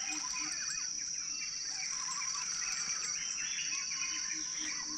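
Riverside dusk chorus: a steady high insect drone, with many short bird chirps and whistles over it and a faint low note pulsing underneath.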